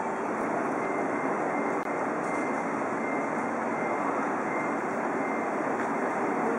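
An E2 series Shinkansen train at the platform, giving off a steady, even hum and rush with a faint high tone coming and going.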